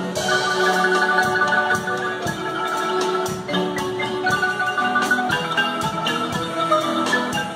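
Two Guatemalan marimbas played together by several players, each holding notes in a fast roll of repeated strikes, with a drum kit's cymbals and drums keeping time.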